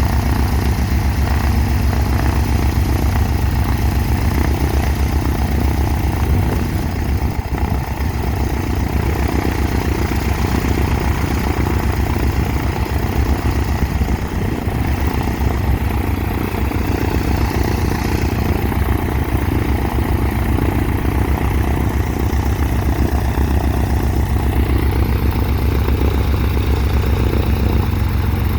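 Cessna 182's piston engine and propeller running steadily at a low, even speed during a ground run-up, the engine's first run after a new exhaust system and a new cylinder were fitted.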